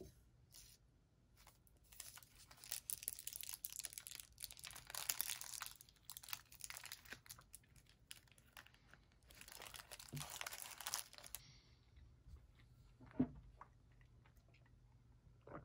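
Crinkling of a paper pastry liner and the tearing of a flaky chocolate cream pastry by hand, in two spells of crackling, then one light knock near the end.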